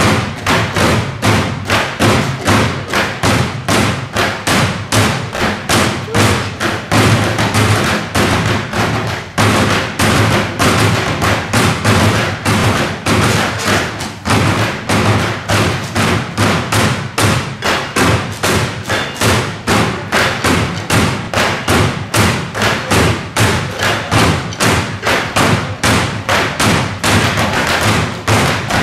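Blue plastic wheelie bins played as drums by hand: an ensemble beating out a steady rhythm of hollow thuds, several strikes a second.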